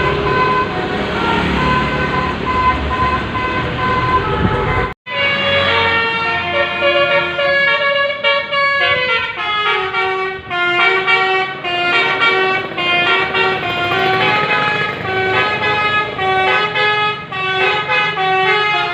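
Bus 'telolet' multi-tone air horn. For about five seconds it holds a steady note over engine rumble. After a brief cut it plays a melody of short stepped notes, including a falling run of notes.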